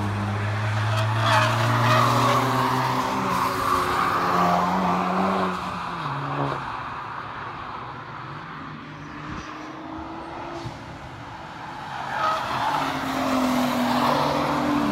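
Track cars passing at speed: a loud engine pulling hard through a bend, with a gear change about six seconds in, then fading away. From about twelve seconds on, a Nissan GT-R's twin-turbo V6 approaches and passes close.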